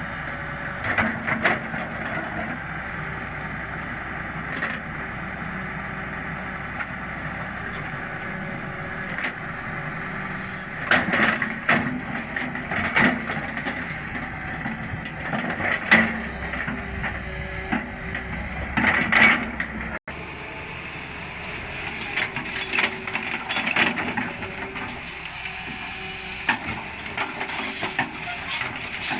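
Sany 210 excavator's diesel engine running steadily under work, with irregular loud clanks and knocks of the machine working, several a few seconds apart.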